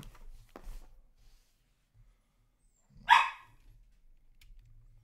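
A dog barks once, loudly and sharply, about three seconds in. Before it come a couple of brief faint scrapes of hands on a cardboard box.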